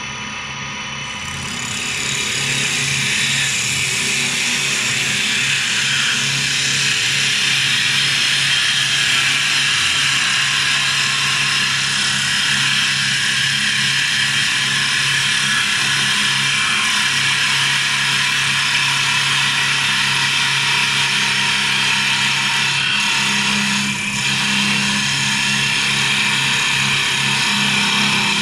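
Double-axis CNC wood lathe turning two wooden blanks at once: a steady motor and spindle hum under the noise of the cutters shaving the spinning wood. The cutting noise builds up about two seconds in, stays steady, and dips briefly about four seconds before the end.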